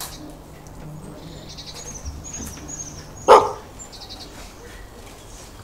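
A single dog bark, played as a recorded sound effect, about three seconds in over a steady bed of chirping forest birdsong.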